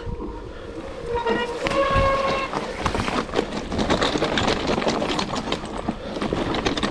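Mountain bike rattling and clattering over rough trail ground, with a couple of short high-pitched squeals in the first two and a half seconds.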